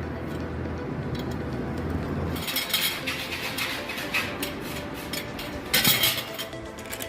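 Metal pieces clinking and scraping against each other, a quick run of sharp clicks starting a couple of seconds in, with a louder scrape near the end. A low hum underneath during the first two seconds.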